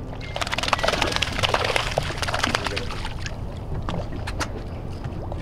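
Water splashing and sloshing at the boat's side as a hooked flounder is reeled up to the surface, a dense crackle of splashes over the first few seconds, then scattered ones. A low steady rumble runs underneath.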